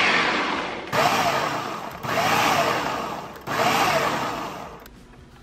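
Countertop food processor pulsed in short bursts about a second long, chopping a full bowl of vegan sausage, mushrooms, onion and spinach. Each press starts the motor suddenly and it winds down, and the pulsing stops near the end.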